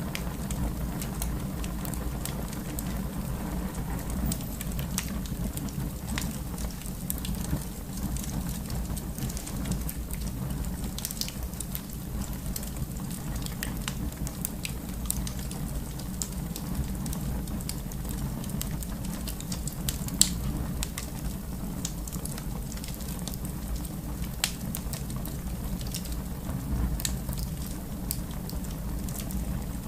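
Fireplace fire burning with a steady low rumble and frequent sharp crackles and pops, a louder pop about twenty seconds in.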